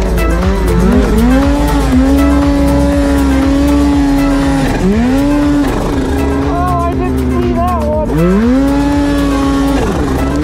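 Polaris snowmobile's two-stroke engine revving hard through deep powder. The pitch sweeps up as the throttle opens, holds high for a few seconds, drops off and climbs again, about three times.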